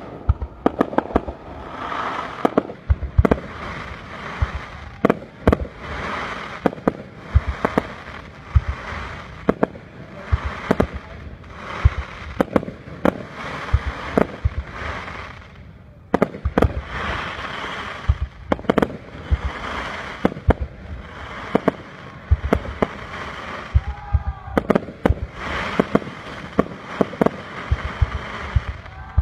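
Aerial fireworks display: a rapid series of sharp bangs as shells burst, one to two a second, each wave trailed by crackling.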